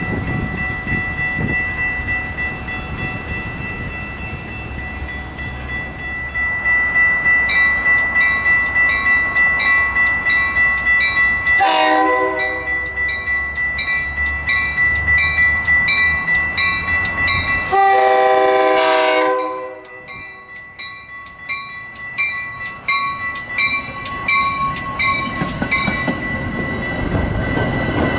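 Metra train horn blowing two blasts: a short one about twelve seconds in and a longer, louder one about eighteen seconds in. A train rumbles through the first half. A bell dings about twice a second from about seven seconds in until near the end.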